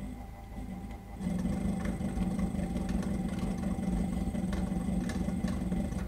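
220 V ceiling fan motor running on an AC dimmer with a steady hum; about a second in it gets markedly louder as the motor is switched up to full speed.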